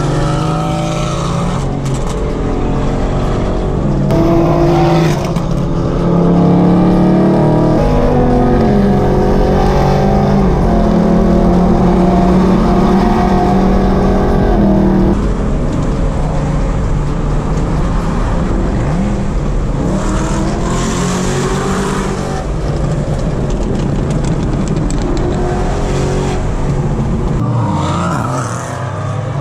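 A BMW M3's engine, heard from inside the cabin under hard acceleration. Its pitch climbs and then drops at each gear change several times, over steady road and wind noise, and it revs up again near the end.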